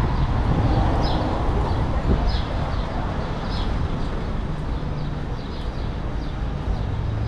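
Steady rumble of city street traffic, with short high chirps repeating in pairs about once a second over it.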